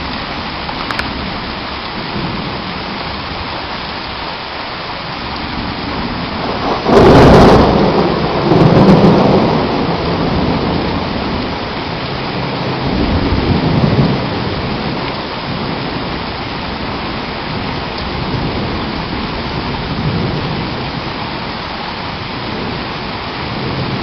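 Heavy rain pouring steadily in a thunderstorm. About seven seconds in a loud thunderclap breaks and rolls on for a couple of seconds, and softer rumbles of thunder follow twice later.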